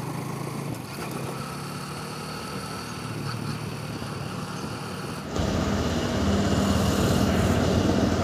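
Motorbike engine running steadily under the rider while moving along a road. It gets markedly louder about five seconds in, with more engine and road noise.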